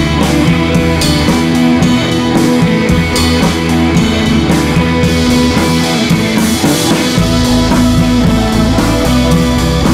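Rock music with electric guitar and a drum kit, played at a steady beat.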